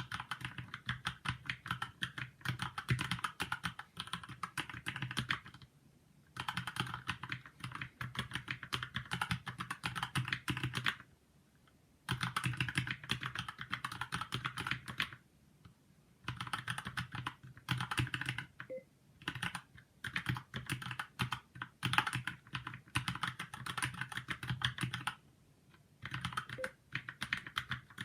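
Fast typing on a Keychron mechanical keyboard: rapid runs of keystroke clicks lasting a few seconds each, broken by short pauses of about a second.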